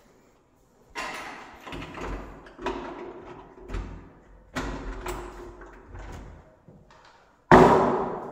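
Wooden room door being handled: a run of thumps and rattles, then one loud slam about seven and a half seconds in.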